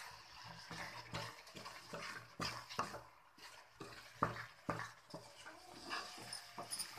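Wooden spatula stirring and scraping a thick, wet carrot paste in a steel kadhai, with irregular soft scrapes and knocks against the pan. The carrot is being cooked down with sugar to dry out its water.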